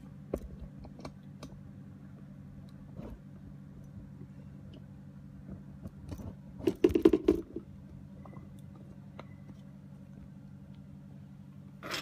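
Light clicks and clatter of small plastic phone parts being handled on a workbench, with a louder burst of rattling about seven seconds in, over a steady low hum.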